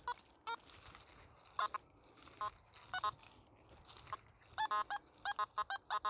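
Nokta Simplex metal detector giving short, pitched beeps as it sweeps a stubble field: scattered single blips, then a quick run of them near the end. The detectorist puts these signals down to iron and metalworking slag in the soil, not to finds.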